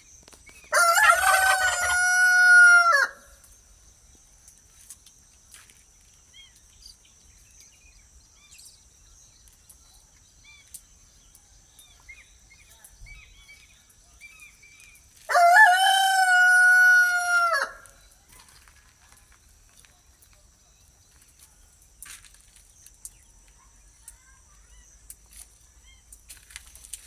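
A rooster crowing twice, about fifteen seconds apart. Each crow lasts about two seconds and drops in pitch at the end. A steady high-pitched whine runs underneath, with faint bird chirps between the crows.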